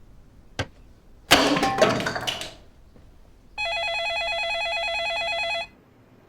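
A loud clatter, then a landline telephone rings once, a steady warbling electronic ring lasting about two seconds that cuts off suddenly.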